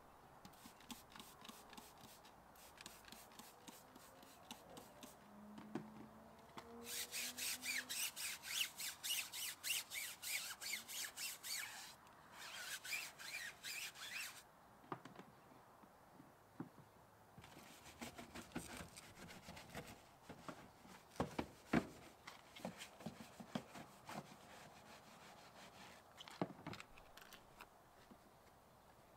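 Wash mitt scrubbing a soapy alloy wheel by hand in quick back-and-forth strokes, about four a second, in two spells of several seconds near the middle. Scattered soft knocks and clicks follow in the later part.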